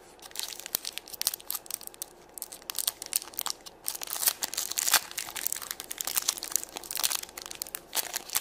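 Thin clear plastic wrapper around a small toy crinkling as fingers handle it, in quick irregular crackles.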